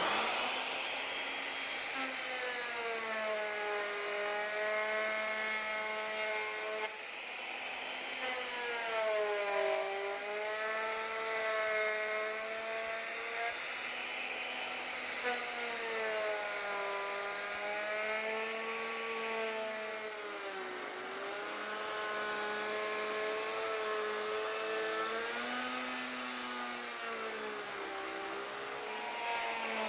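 Router running and cutting wood with a router bit, taking a pass on an arched moulding toward its final depth. It is a steady motor whine whose pitch dips and recovers every few seconds as the bit loads up in the cut.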